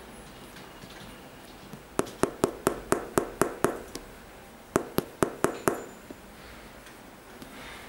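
A finger tapping on the sole of an Air Jordan 13 sneaker near its plastic hologram pod: a quick run of about eight taps at roughly four a second, a pause of about a second, then five more.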